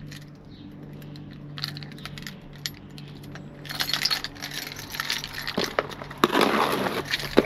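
Hands opening a cardboard box and rummaging through the packaged items inside: rustling, rattling and light clinking. It starts quiet and grows busier and louder about halfway through, over a low steady hum.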